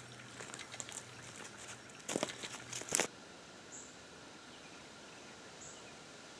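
Footsteps of a person walking in boots along the wet edge of a shallow creek, with a cluster of heavier steps around two to three seconds in. They stop abruptly, leaving a faint steady outdoor hiss with two short high chirps.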